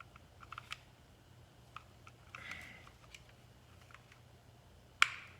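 Faint clicks and taps of plastic parts being handled as the fuel level sender's wire connector is fitted to a Yamaha FZ6 fuel pump assembly, with one sharper click about five seconds in.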